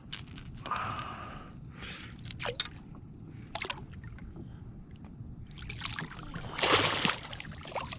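Water sloshing and splashing at a kayak's side as a largemouth bass is held in the water and let go, with the loudest splash about seven seconds in as it swims off. In the first few seconds, sharp clicks of pliers and the crankbait while the fish is unhooked.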